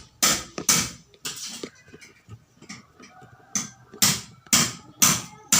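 A metal hand tool striking or scraping the dismantled engine's parts in short, sharp strokes, about two a second. There are three strokes in the first second and a half, a pause, then a steady run from about three and a half seconds in.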